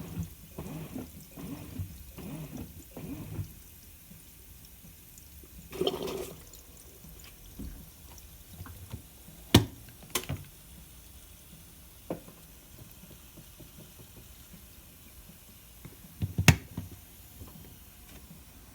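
Washing machine with water sloshing in rhythmic pulses about twice a second for the first few seconds, then quieter, broken by a few sharp clicks or knocks.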